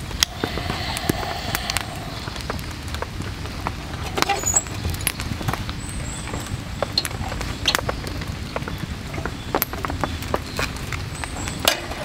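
Steady heavy rain falling, with many scattered sharp taps of drops striking nearby surfaces.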